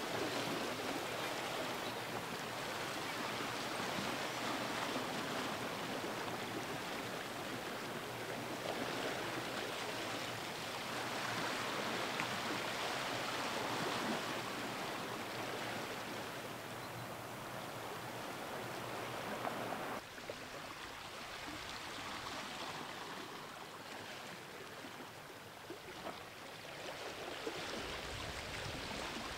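Steady rushing outdoor noise with no distinct events, dropping slightly in level about two-thirds of the way through.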